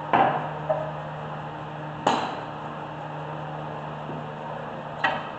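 Sharp metallic clanks as a dual-piston caliper compression tool is released and handled against the brake caliper: three distinct knocks, about two to three seconds apart, and a lighter clink just after the first.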